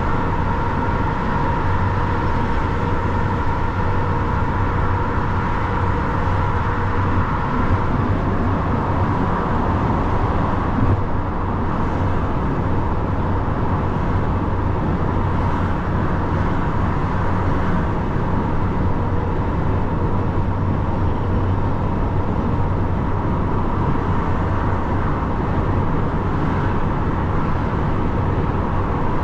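Truck driving steadily on the motorway, heard from the cab: an even drone of engine hum with tyre and wind noise, unchanging throughout.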